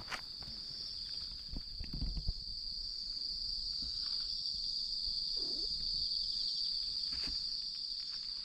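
Crickets and other night insects trilling in a steady high-pitched chorus. A few soft rustles and thuds of steps in the grass come about two seconds in.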